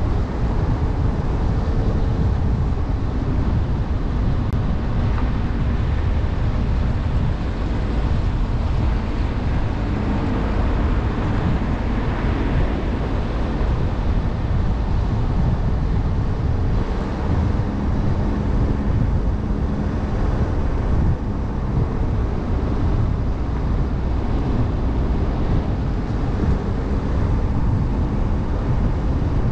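Steady in-motion noise from a Jeep Trailhawk driving on a cleared winter road: a low rumble of tyres and road with a faint engine drone under it.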